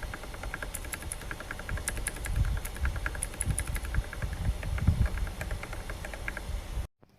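Typing on a mechanical keyboard fitted with XDA-profile PBT keycaps: quick, irregular key clacks, several a second, over a steady low rumble. The sound cuts off abruptly near the end.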